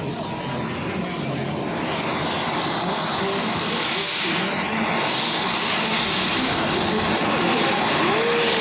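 Saab JAS 39 Gripen's Volvo RM12 turbofan running on the ground, its rushing, hissing jet noise growing steadily louder as the engine spools up.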